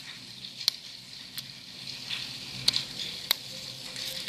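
Slime softened with liquid soap being squeezed and kneaded by hand, giving about five sharp, crisp clicks at uneven intervals as air pockets pop.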